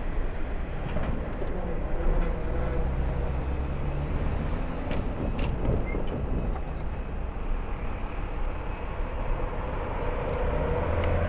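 Steady rumble of an intermodal freight train's cars rolling along the track, with a few short clicks about five seconds in.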